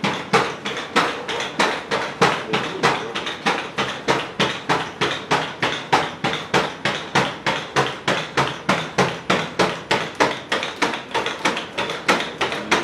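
Cassie bipedal robot's feet striking the floor as it walks, a steady run of sharp footfall impacts at about three to four steps a second.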